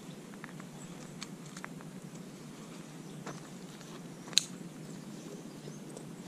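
Backpack being packed by hand: scattered small clicks and rustles of gear and straps, with one sharp, much louder click about four seconds in as the pack's straps are handled.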